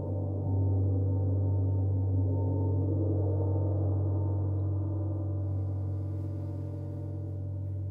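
Two large gongs played with soft felt mallets: a deep, sustained wash of overlapping tones that swells about half a second in and slowly fades toward the end.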